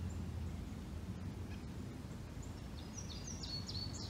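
A small songbird sings a quick run of short, high notes that step up and down, starting a little past halfway. Under it runs a steady low rumble.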